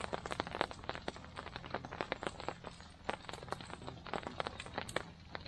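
Raindrops tapping on the tarp stretched overhead: irregular sharp taps, several a second, over a faint steady background hum.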